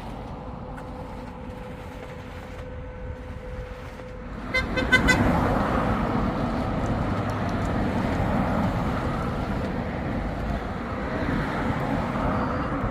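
A vehicle horn gives a quick run of short toots about four and a half seconds in, over the low running of a vehicle; afterwards the vehicle noise is louder.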